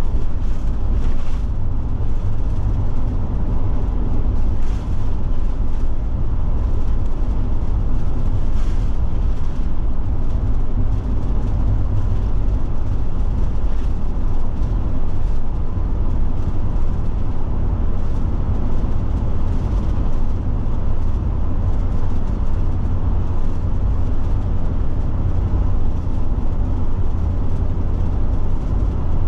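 Forest River Forester motorhome driving at cruising speed: a steady low engine and road rumble with tyre noise, heard from inside the cab.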